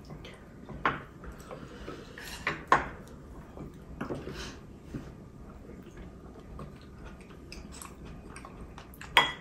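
Spoons and chopsticks clinking and scraping against ceramic bowls during a meal: a few scattered sharp clinks, the loudest near the end.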